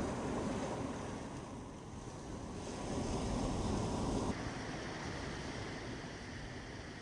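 Ocean surf washing onto a beach with wind, the waves swelling twice; the sound drops suddenly a little past halfway.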